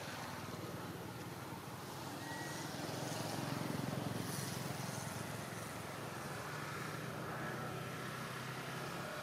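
Faint low rumble of a distant engine that swells about three to four seconds in and then eases off, over outdoor background noise.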